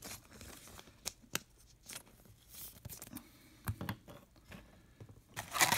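Trading cards being handled, with scattered soft clicks and rustles as they are set down, then near the end a burst of crinkling as the wrapper of the next card pack is grabbed and torn open.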